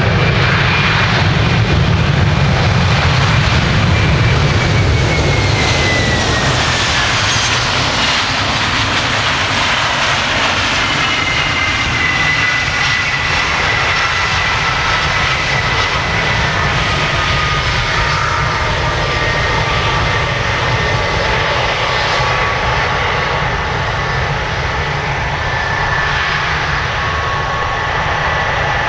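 Boeing 767-300's jet engines during the landing rollout: a heavy low rumble, strongest in the first few seconds, under a high whine that drifts slowly lower in pitch as the airliner slows on the runway.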